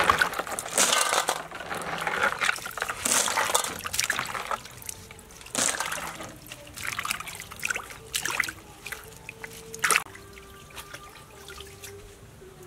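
Lettuce leaves being swished and rinsed by hand in a plastic basin of water: irregular splashing and dripping, busiest in the first few seconds, then sparser, with a couple of sharper splashes later on.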